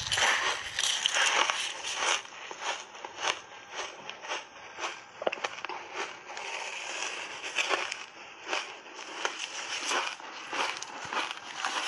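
Shaved ice coated in matcha powder being bitten and chewed close to a clip-on microphone: a continuous run of irregular crisp crunches.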